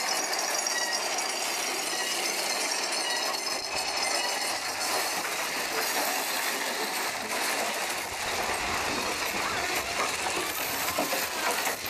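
Big Thunder Mountain Railroad's mine-train roller coaster running along its track, the cars clattering and rattling steadily.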